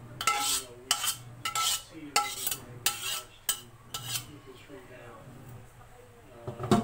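A metal spatula scraping the last of the food out of a wok into a steel pan, in about seven quick scrapes and clinks over the first four seconds. A heavier clank of the cookware comes near the end.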